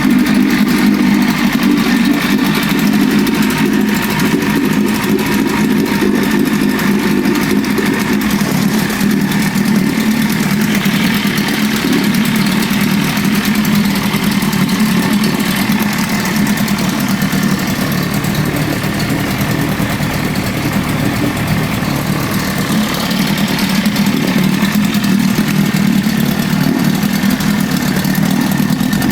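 1981 Evinrude 25 HP two-cylinder two-stroke outboard motor running steadily at low rpm during break-in after a full rebuild. It dips slightly about two-thirds of the way through and then comes back up.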